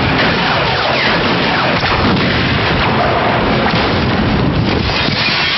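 Loud, unbroken action-film sound mix: booming, crash-like effects over music.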